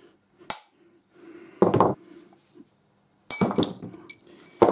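Ball-peen hammer striking a punch held against a lathe live centre to drive its bearings out of the body: four sharp metal-on-metal knocks a little over a second apart, the later ones ringing.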